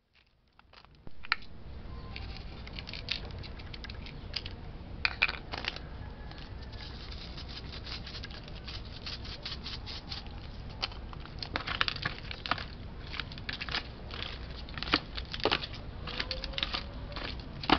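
Hands salting and rubbing raw beef cubes in a thin plastic meat tray: irregular crinkles, taps and wet rubbing sounds over a steady low background hum. The sounds start about a second in.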